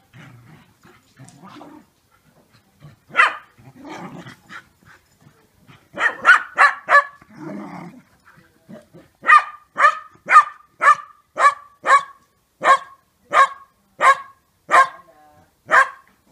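Two dogs at rough play: low growling at first, then a quick cluster of barks about six seconds in, then a steady run of about a dozen sharp barks, a little under two a second, near the end.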